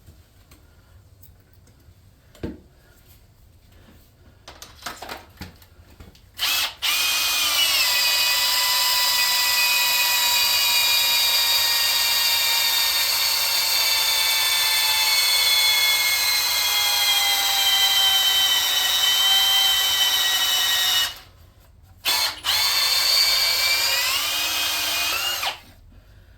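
Power drill driving a core drill into the aluminium block of a Chevy LS engine, opening up a stripped head bolt hole. After a few light knocks, the motor whines steadily for about fifteen seconds, its pitch sagging slowly under load, stops, gives a short burst, then runs again for a few seconds near the end.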